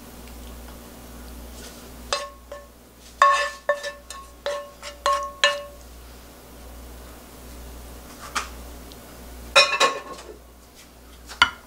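A wooden spoon knocking and scraping against a nonstick frying pan as the last of the braised burdock is emptied onto a plate. A quick run of about eight knocks, each with a short ring, comes about two seconds in. After a pause, a few more knocks come near the end.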